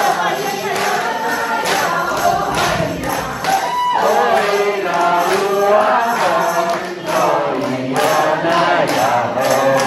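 A group of voices singing a lively song together over a steady beat.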